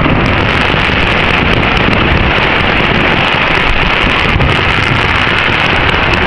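Firework fountain (gerb) spraying a tall column of sparks: a steady, loud rushing hiss with no separate bangs.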